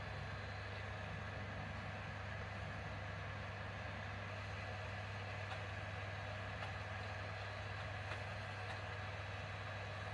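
Steady low hum that does not change, with no distinct clicks or events.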